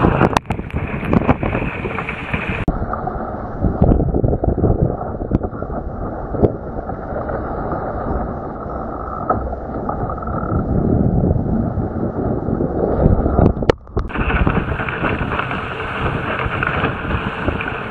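Wind buffeting the microphone over water rushing and splashing against a small sailing dinghy's hull as it heels and drives through waves. For most of the middle stretch the sound turns duller and muffled, then opens up again near the end.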